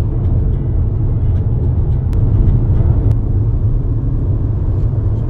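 Steady low road and engine rumble of a car driving, heard from inside the cabin, with a couple of faint ticks.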